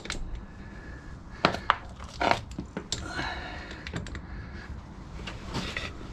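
Metal wrench clicking and tapping against the nuts of a Moto Guzzi V7's bevel box assembly as they are tightened by hand: a few scattered sharp metallic clicks, the loudest between about one and a half and three seconds in.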